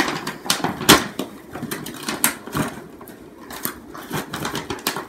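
Snowflake-print gift paper crinkling and rustling in the hands, a fast irregular run of crackles with one sharper crack about a second in, thinning out toward the end.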